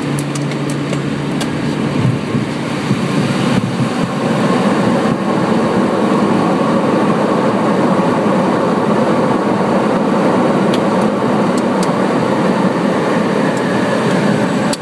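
Light aircraft cabin noise on landing: a steady engine drone, giving way about two seconds in to a louder rushing rumble as the aircraft rolls along the runway.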